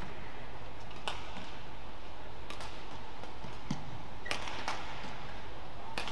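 Badminton rackets striking a shuttlecock in a rally: a series of sharp hits, one every second or so, over a steady low background.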